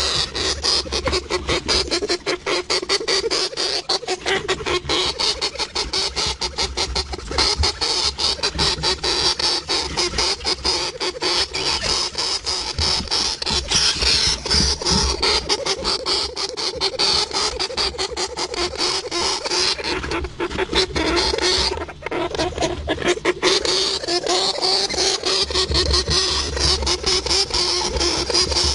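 Hamster noises: a rapid, continuous stream of clicks and scratches with a high hiss, dipping briefly a little after twenty seconds.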